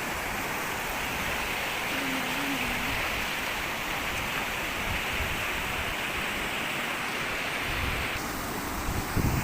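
A river rushing steadily over rocks, a continuous hiss of flowing water. A low rumble joins near the end.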